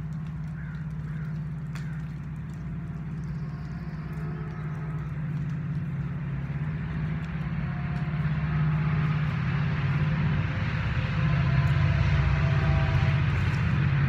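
A vehicle engine running with a steady low drone that grows louder about eight seconds in.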